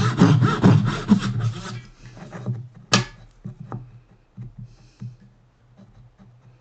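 Hand saw cutting wood with quick back-and-forth strokes that stop about two seconds in, followed by a sharp tap and a few light clicks of handling.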